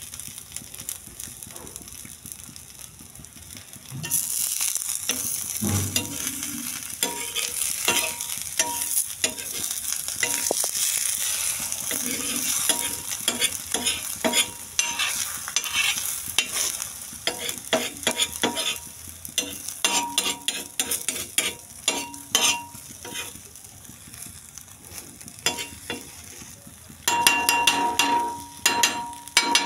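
An egg sizzling on a flat iron griddle, getting louder about four seconds in. A metal spatula scrapes and taps on the griddle as it breaks up and turns the egg, with a louder run of scraping near the end.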